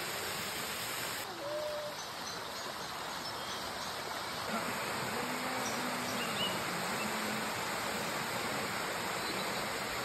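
Steady rushing of a waterfall sheeting down a sloping rock face.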